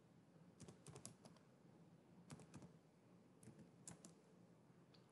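Faint computer keyboard typing: three short runs of key clicks with pauses between them.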